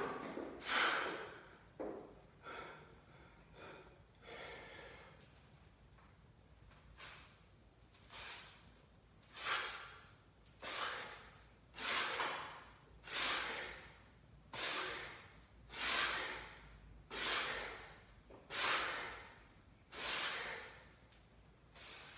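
A man breathing hard during a set of barbell front squats: a sharp breath about every second and a third, growing louder as the set goes on.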